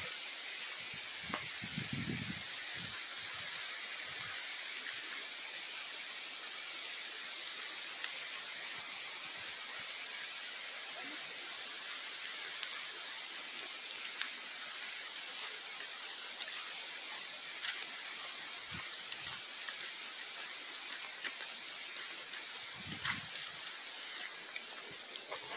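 Steady hiss of rain falling on wet pavement and vegetation, with scattered faint drop ticks and a few soft low thumps.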